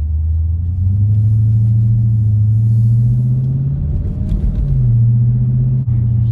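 Exhaust of a 2020 Dodge Scat Pack's 392 HEMI V8 with its mid-mufflers deleted, a deep steady drone under way. The pitch climbs slowly, breaks briefly about four seconds in, and drops a little near the end.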